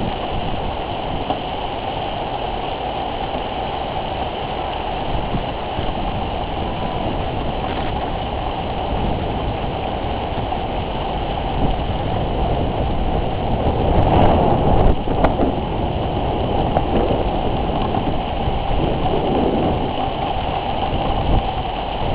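Steady noise of a rainstorm, rain and wind, buffeting the microphone. It swells louder for a second or two with a few sharp cracks about two-thirds of the way through.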